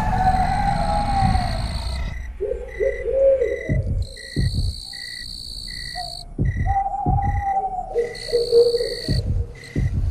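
Eerie night ambience: a cricket-like chirp repeating about twice a second, long wavering hoot-like tones, and several low thumps. Higher tones cut in and out abruptly, like an edited sound bed.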